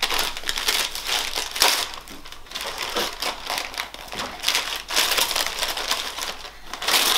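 Gift-wrapping paper being torn and crumpled by hand as a present is unwrapped, in irregular bursts of ripping and rustling.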